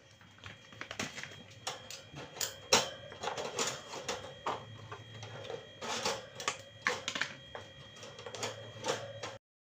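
Irregular clicks, taps and clatter of hard objects being handled, over a faint steady hum; the sound cuts out abruptly shortly before the end.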